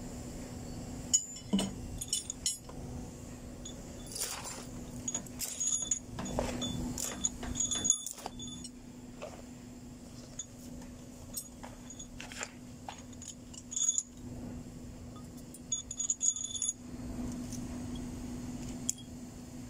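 Metal hand tools clinking and clanking on a truck diesel engine's cylinder head as it is worked on with a spanner: a scatter of sharp knocks with bright metallic ringing, busiest in the first half and again near the end, over a steady low hum.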